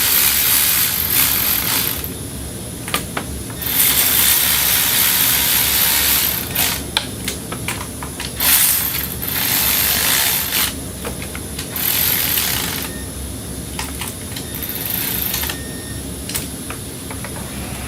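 Power tool running bolts in on a thermostat housing, in about five short runs of one to two seconds each, with small clicks and knocks of handling between them.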